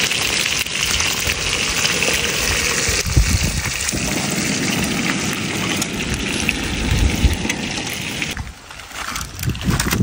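Fish frying in hot oil, a steady sizzle that drops away about eight seconds in.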